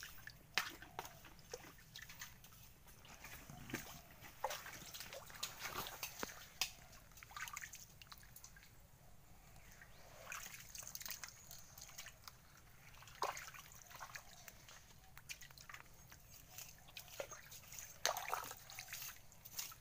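Hands digging in waterlogged mangrove mud and shallow water, making irregular sloshing, small splashes and wet squelches and clicks.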